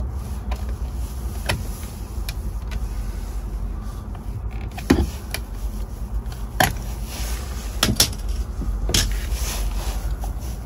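A handful of sharp clicks and knocks as the plastic centre cap of a boat's steering wheel is worked loose by hand and pulled off its chrome hub, over a steady low rumble.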